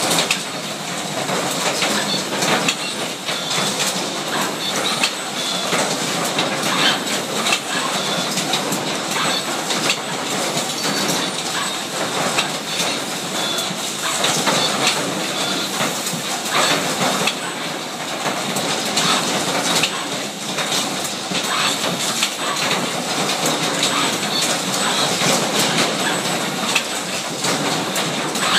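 Robotic assembly cell running, with Fanuc delta picking robots and the assembly machine handling plastic parts and metal pins. It makes a steady, dense clatter of quick clicks and knocks over a constant hiss.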